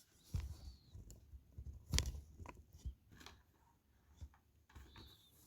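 Light handling noises: scattered soft taps and rustles, with a sharper click about two seconds in.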